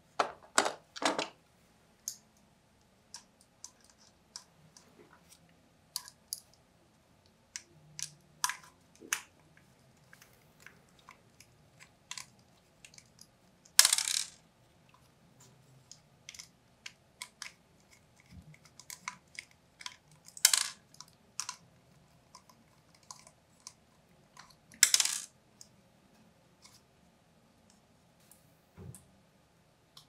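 Small metal clicks and clinks from handling a 2.5-inch SSD, its metal drive bracket and tiny screws, with a screwdriver turning the screws. The clicks come irregularly, with a few louder rattling scrapes, the loudest about halfway.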